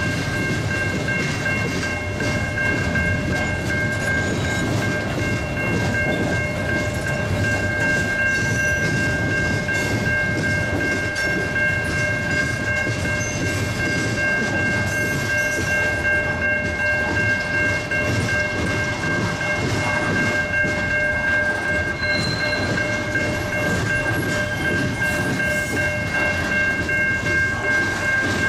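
Freight cars rolling past with a steady rumble of wheels on rail. Over it, a grade-crossing signal bell rings as a constant high tone.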